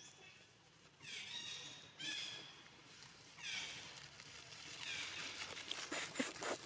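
Baby macaque giving high-pitched cries, three of them about a second apart, each bending in pitch. Near the end, crackling of dry leaves under a walking monkey, with a sharp click at the very end.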